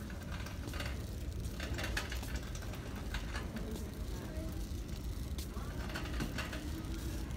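Shopping cart being pushed across a hard store floor: a steady low rumble from the wheels, with scattered clicks and rattles from the wire basket.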